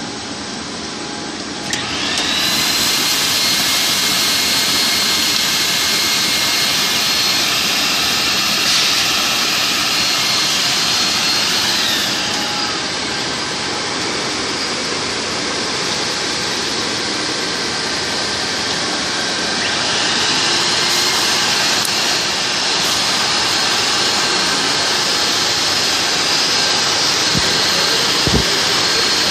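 Single-wall corrugated hose extrusion line running: a loud, steady machine rush with a high two-tone whine. The whine comes in about two seconds in, slides down and fades around twelve seconds, and returns about twenty seconds in.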